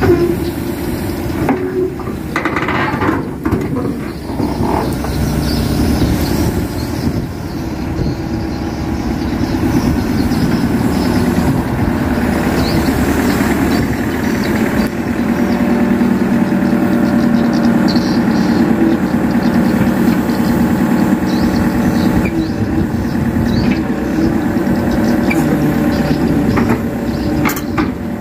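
Crawler excavator's diesel engine running steadily, slightly louder from about a third of the way in, with a few short knocks over it.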